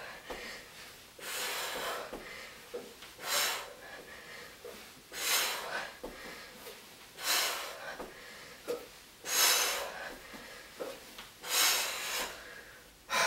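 A woman breathing hard through alternating toe-touch crunches: a sharp, hissing exhale about every two seconds, one with each rep, with quieter breaths in between.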